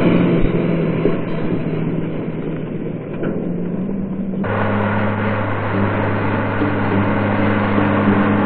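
Background music made of sustained low notes that change pitch now and then. About four and a half seconds in, the sound changes abruptly and becomes fuller.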